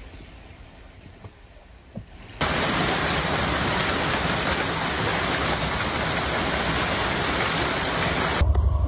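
Heavy hail pelting a house and yard in strong wind: a loud, steady rushing clatter that cuts in suddenly about two and a half seconds in, after a quieter stretch with a few faint taps. Near the end it gives way to a low pulsing hum.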